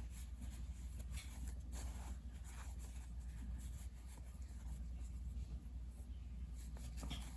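Faint rustling and light scratching of quilt fabric being handled as the binding is folded over at a corner, over a steady low hum.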